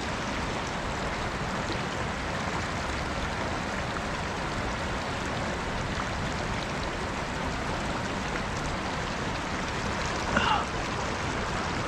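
Steady rush of a flowing mountain river, with one short high-pitched glide about ten seconds in.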